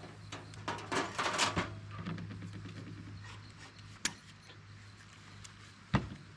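Scraping and clattering as a portable camp grill is cleaned and handled, loudest for about a second near the start. A sharp click follows about four seconds in, and another near the end.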